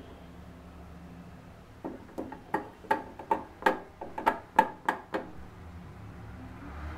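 About ten quick, sharp taps on an upturned glass tumbler, roughly three a second, knocking it to loosen the steamed puttu moulded inside before the glass is lifted off.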